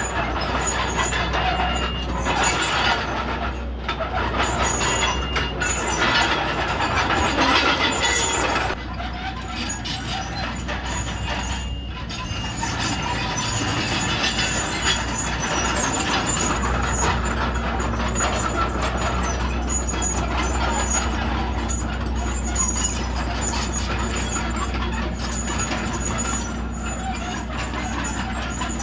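Komatsu D31PX bulldozer's diesel engine running under working load, with a steady low drone. Its sound shifts abruptly about nine seconds in and again past sixteen seconds.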